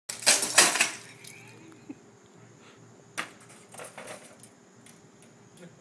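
A VCR's casing and parts rattling and clattering as it is handled, loudest in the first second, followed by a few separate clicks and knocks.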